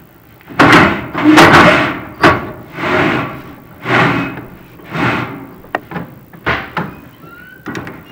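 Inspection camera and its push rod scraping and rubbing against the inside of a prefab fireplace's metal chimney flue as they are pushed down, in repeated swishing scrapes about once a second, with shorter sharper knocks near the end.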